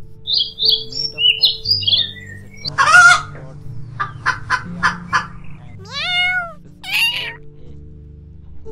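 Chickens clucking and squawking: a few high chirps first, then a loud squawk about three seconds in, a quick run of short clucks, and two drawn-out calls near the end.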